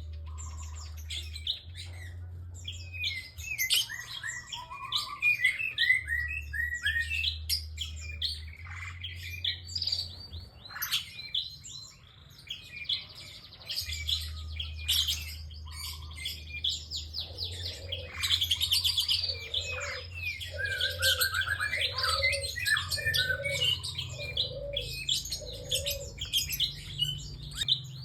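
Prinia (prenjak) calling without pause: fast, sharp chirps and sweeping trills. In the second half a lower note repeats about once a second under them.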